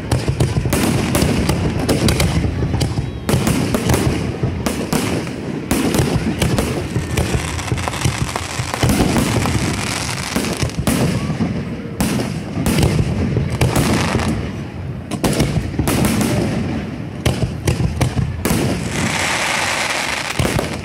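Aerial fireworks show: a dense run of booms and sharp crackling bangs, several a second, over a constant low rumble, with a crackling hiss near the end.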